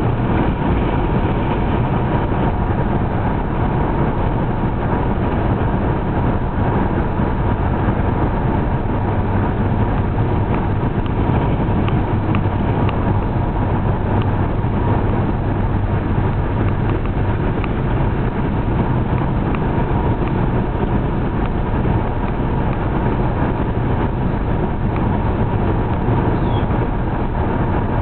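Steady engine hum and tyre noise inside a car's cabin while it drives along a paved road.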